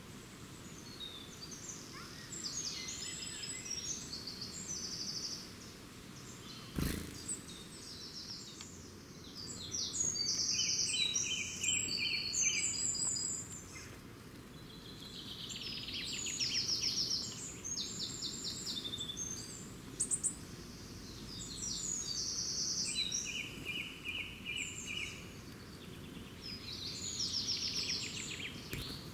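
Songbirds singing, with phrases of rapid trilled notes lasting a second or two, repeated with short pauses between them. A single sharp click sounds about seven seconds in.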